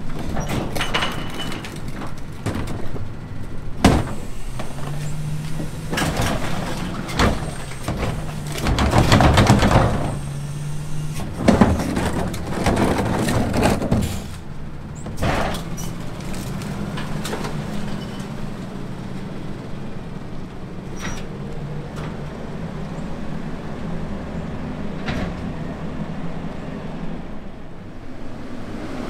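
Autocar ACX garbage truck with a McNeilus rear-load body running, with sharp knocks and a run of bangs and clattering in the first half from the rear-loader collection work, then the engine running steadily.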